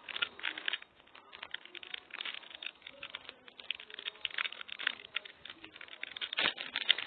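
Clear plastic packaging pouch crinkling and rustling as it is handled and opened by hand, in quick irregular crackles, with one sharper knock about six seconds in.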